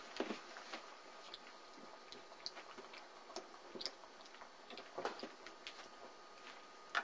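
Faint, irregular clicks and scuffles from 4-week-old German Shepherd puppies at play, a little louder a few times.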